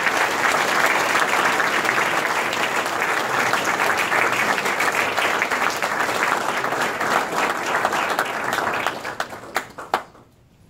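Audience applauding. The clapping is steady and loud, then thins to a few scattered claps about nine seconds in and dies away near the end.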